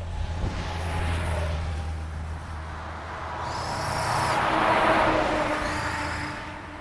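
A motorcycle rides past, loudest about a second in, then a MAN refuse truck drives by close, its engine and tyres the loudest sound about five seconds in before fading away.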